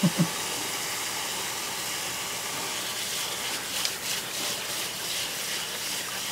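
Tap water running steadily into a plastic basket of cut sea squirt as hands rub and rinse the pieces, with a few soft splashes a little past halfway.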